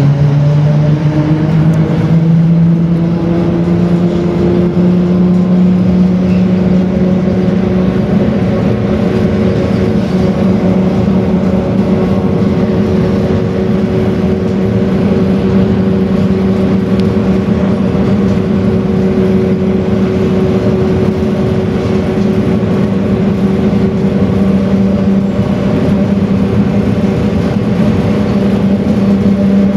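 ZiU-682KR trolleybus riding, heard from inside the passenger cabin: the electric traction drive whine rises in pitch for the first couple of seconds as it speeds up, then holds a steady pitch as it cruises, over constant tyre and road rumble.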